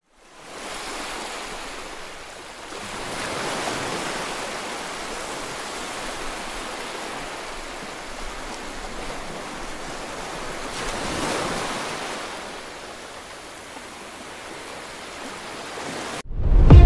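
A steady rushing noise, like surf or wind, that swells a few seconds in and again about eleven seconds in, then cuts off suddenly near the end as loud music starts.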